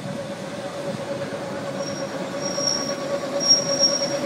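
Historic electric tram running past on street rails, its steel wheels squealing on and off at a high pitch from about two seconds in, over a steady lower tone.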